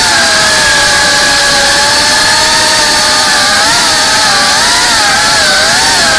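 FPV quadcopter's brushless motors and propellers whining loudly as it flies, heard close up from the onboard camera; the pitch wavers up and down with the throttle, dipping and rising several times in the second half.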